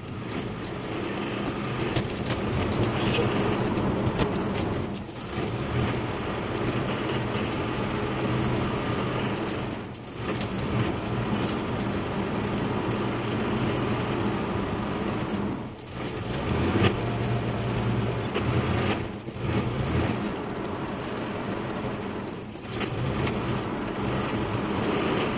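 Car engine and tyre noise heard from inside a moving car, a steady hum that drops away briefly every few seconds.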